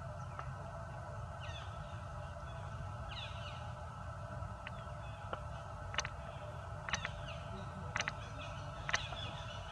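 Two brief falling chirps early on, then sharp clicks about once a second in the second half, over a steady low rumble and a constant high ringing drone.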